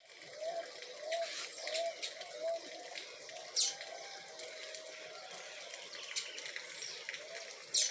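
Birds calling: a bird repeating a short arched note about one and a half times a second, with two sharp, high, falling whistles, over a faint steady hiss of water.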